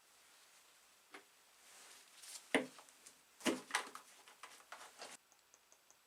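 A few light knocks and clicks of small hard objects being handled, the loudest about two and a half and three and a half seconds in, stopping abruptly about five seconds in.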